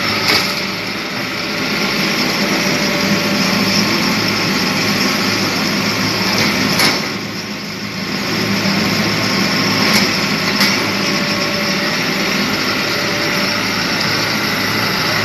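Wheeled excavator's diesel engine running under load as it digs and swings, with a few sharp knocks. The engine eases briefly about halfway through.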